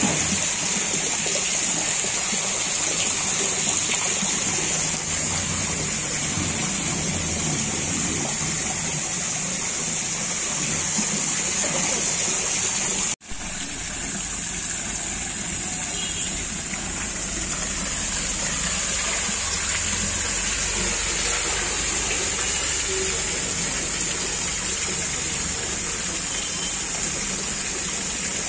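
Steady rush of flowing water in a shallow, tiled fish tank. It breaks off for an instant about halfway through, then carries on unchanged.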